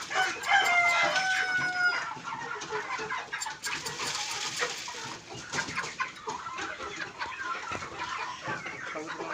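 Domestic chickens: a rooster crows once near the start, one long call of about two seconds, then the flock keeps clucking, mixed with many short clicks.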